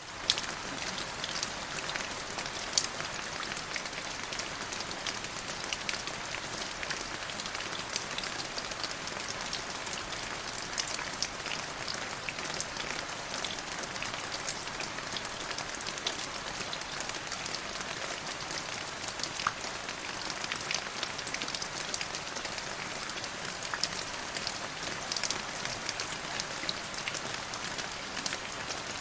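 Steady rain falling on a surface, a continuous hiss with many separate drop ticks scattered throughout.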